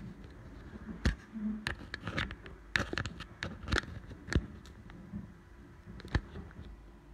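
Irregular sharp clicks and taps close to the microphone, about a dozen of them over five seconds, over a low steady hum.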